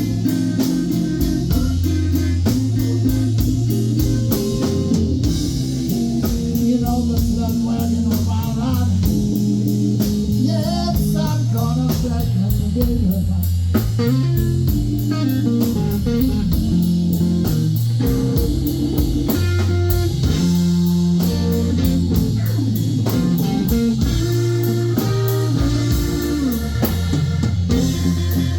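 Live blues band playing a slow blues: electric guitar lead lines with bent notes over bass guitar and a steady beat.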